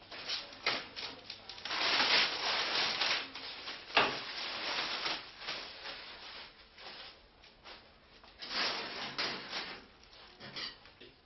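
Kitchen work noises: two spells of scraping and rubbing, with a sharp knock about four seconds in and scattered small clicks and clatter.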